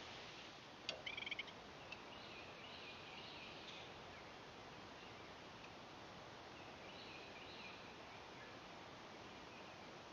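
Birds calling faintly over a steady hiss: a quick cluster of short high chirps about a second in, then scattered faint chirps.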